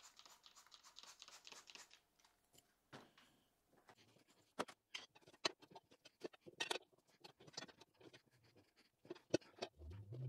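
A trigger spray bottle of Simple Green squirted rapidly onto a lawn-tractor tire's bead. Then scattered knocks, clicks and rubber scraping as the tire bead is forced back over the steel rim by hand, with a low grunt of effort near the end.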